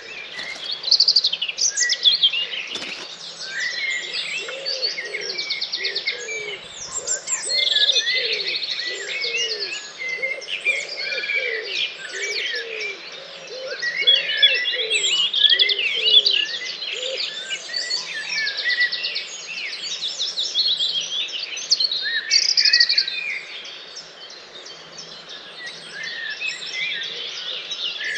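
Dawn chorus: many songbirds singing at once in a dense, overlapping mix of high trills, chirps and whistles. A pigeon coos low and repeatedly beneath them for much of the time.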